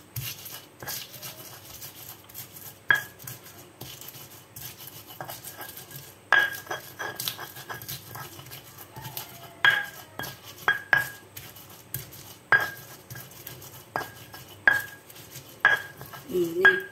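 Stone pestle grinding chillies and garlic in a stone mortar (Indonesian cobek and ulekan): continuous gritty scraping and crushing, with sharp stone-on-stone knocks every one to three seconds.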